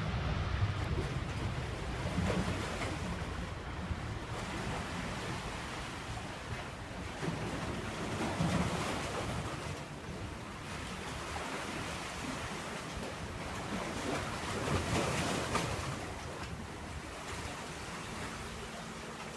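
Sea waves washing in against the shore, swelling up every six seconds or so, with wind rumbling on the microphone.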